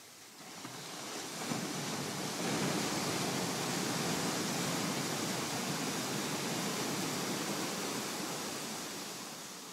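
Ocean surf: a wave breaking and its foam washing up the sand, a rushing hiss that swells about half a second in and eases off near the end.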